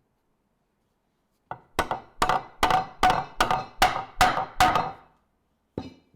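Chisel driven by a mallet into hard maple, chopping out a rough recess for the vise hardware. After a short quiet, about nine sharp blows come at an even pace of roughly two and a half a second, each with a brief ring, and one more blow follows near the end.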